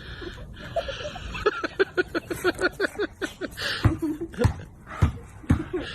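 A person laughing in a quick run of short bursts, about five a second, followed by a few louder separate outbursts in the last two seconds.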